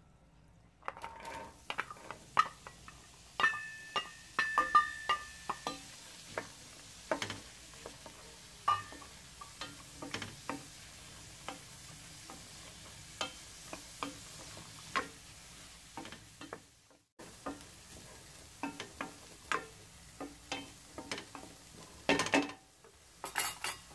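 Diced carrots sautéing in butter and oil in a stainless steel pan: a faint steady sizzle under repeated knocks and scrapes of a wooden spatula stirring against the pan. A few knocks early on make the pan ring briefly, and a louder scrape comes near the end.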